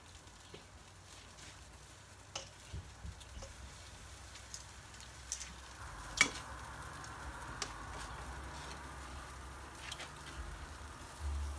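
Meat sizzling on a charcoal grill, with light clicks of metal tongs and utensils; one sharper click comes about six seconds in.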